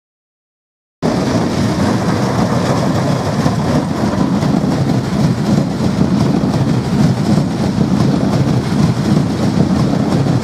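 Trenitalia Jazz regional electric multiple unit passing close by: a loud, steady rumble of wheels on the rails. It starts abruptly about a second in, after a moment of silence.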